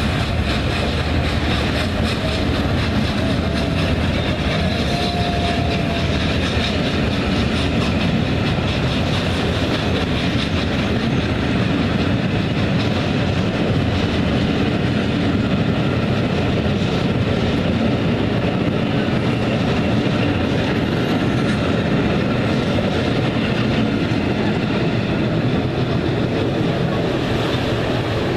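Passenger coaches of a steam-hauled train rolling past on the track, a steady, even running noise.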